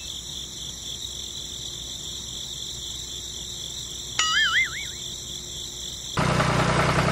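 A steady high-pitched whine with a faint ripple, broken about four seconds in by a short warbling chirp; about six seconds in it cuts suddenly to a louder engine running at idle.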